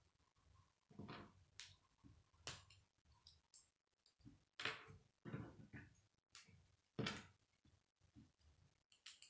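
Faint clicks and rattles of plastic K'nex pieces being handled and snapped together: a few separate clicks every second or so, the loudest about halfway through and again near the end.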